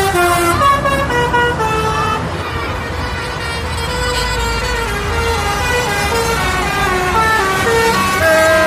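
Bus telolet horn, a set of tuned air horns, playing a quick tune of short notes that step up and down in pitch, over the bus's engine running low underneath.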